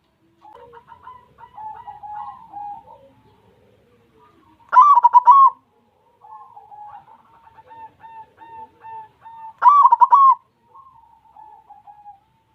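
White zebra dove (perkutut) cooing: two loud runs of quick, rolling coo notes about five seconds apart, with softer repeated coos before, between and after them.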